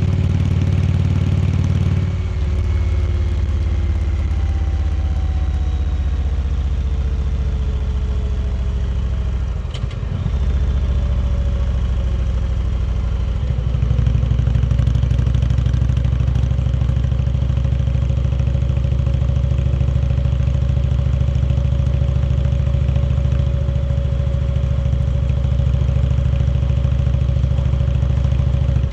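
Indian Chieftain Dark Horse's V-twin engine running while the motorcycle is ridden. The engine note changes about two seconds in and breaks off briefly about ten seconds in. From about fourteen seconds on it runs steadily and fuller.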